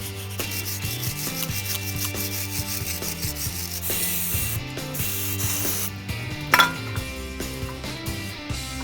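Background music: a bass line stepping from note to note over a fast, even ticking beat, with one sharp knock about six and a half seconds in.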